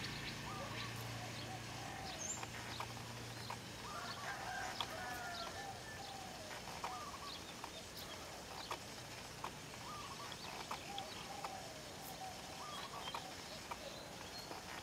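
Birds calling in the background with many short repeated notes, mixed with scattered faint sharp clicks.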